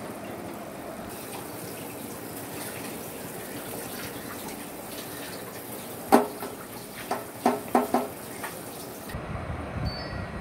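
Sugar syrup boiling hard in a steel pot, a steady bubbling hiss. About six seconds in come a handful of short sharp knocks, the loudest first, and near the end the sound changes abruptly.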